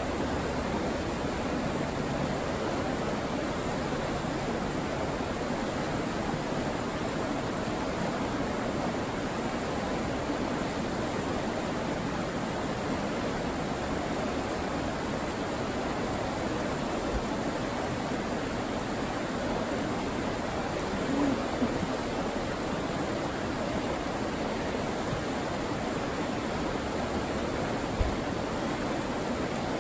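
Steady rush of fast river rapids, white water pouring over rocks.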